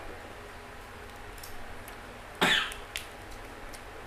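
A person coughs once, a short sharp cough a little past halfway, over faint clicks of eating and utensils.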